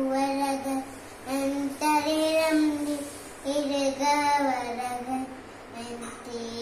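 A young child singing a prayer chant in long held notes, phrase after phrase with short breaks between, the last phrase lower and softer.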